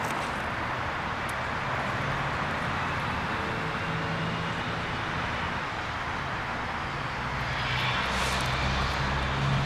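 A distant engine hum over steady outdoor noise; the hum grows louder near the end.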